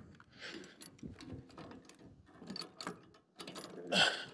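Metal clicking and rattling in an irregular run as the winch hook and rigging are handled and unhooked, with a louder clank about four seconds in.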